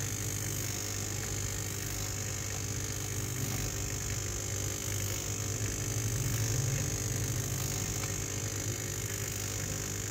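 Laurastar 535 steam station's water pump buzzing steadily, running nonstop rather than cycling, which the repairer takes for a fault; it swells a little about six seconds in.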